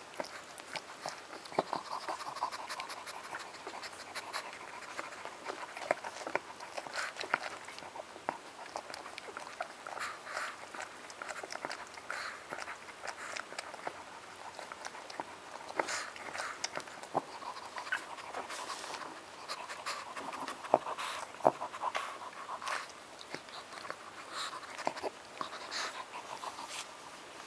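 Twelve-day-old Shih Tzu puppies and their mother moving together at close range: small puppy squeaks and snuffling over many soft, irregular clicks and rustles.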